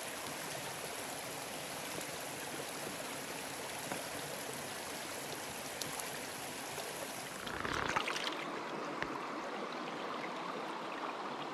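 Small rocky stream running over stones, a steady rush of water. About eight seconds in it briefly gets louder, then carries on a little thinner.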